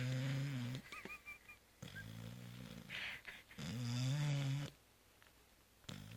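Labrador retriever snoring in deep sleep: two loud, low snores about four seconds apart, with softer rasping breaths between them.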